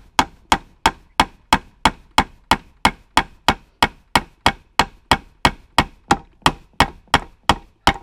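Claw hammer tapping a nail into a wooden board in quick, evenly spaced strokes, about three a second, each with a short metallic ring.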